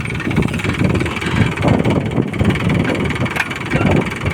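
Mahindra Yuvo 415 DI tractor's diesel engine running steadily.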